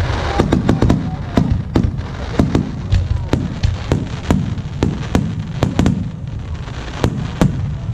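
Fireworks display bursting in rapid succession: sharp bangs about two to three a second over a continuous low rumble of explosions.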